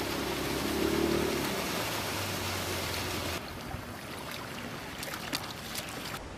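Small outboard motor on an inflatable boat running under way, over a wash of water noise. About three and a half seconds in, the motor sound cuts out abruptly, leaving a steady hiss with scattered clicks and taps.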